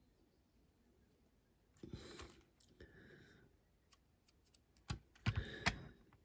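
Faint clicks and small knocks from handling a diecast model car and paintbrush during painting, with a short rustle about two seconds in and a few sharper taps near the end.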